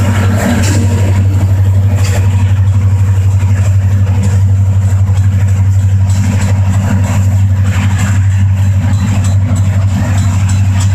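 Union Pacific diesel locomotive engines running, a loud, steady deep drone with an even hum above it.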